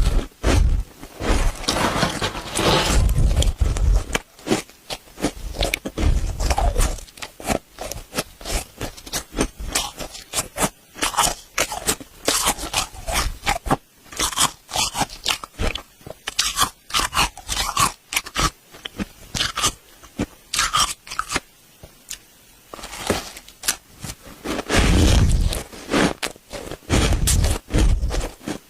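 Dry deep-freezer frost scraped with a spoon and bitten and chewed, a dense run of squeaky, crackling crunches with heavier bites here and there.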